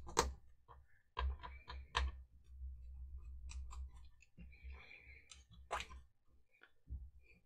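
Small clicks, taps and scrapes of a screwdriver and fingers working the plastic heater-plate cover off a GHD SS4 hair straightener, with a longer scraping rub about five seconds in.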